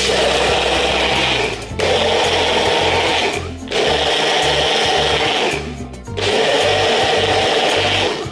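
Personal bullet-style blender blending leaves in water, run in four pulses of about one and a half to two seconds each, with short pauses between.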